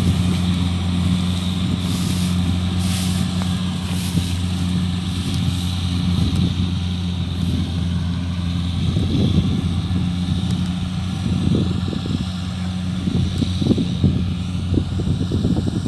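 Kubota DC-70 combine harvester running steadily as it cuts rice: a continuous diesel engine and threshing-machinery hum with a low, even drone.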